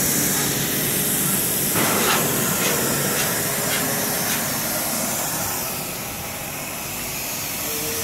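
CNC plasma cutting machine's torch hissing steadily with rushing air, with a few short clicks about two to four seconds in. The hiss eases slightly near the end.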